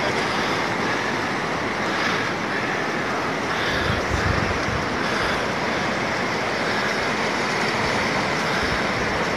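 Steady rushing of fast river water flowing through a rocky gorge, holding an even level throughout, with a brief deeper rumble about four seconds in.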